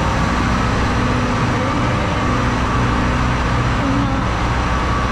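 Idling diesel train engines at a station: a steady, even drone with a low hum and a few constant tones over it.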